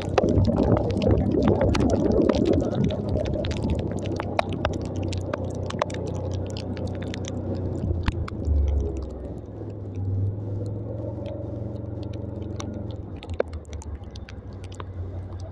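Motorcycle engine running at a steady low drone while riding on a wet, muddy road. Tyre and water noise is strongest in the first few seconds, and many sharp ticks are scattered throughout.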